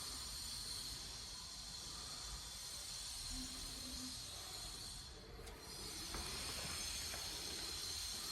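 Faint steady hiss, background noise with no distinct event; it dips briefly a little after halfway.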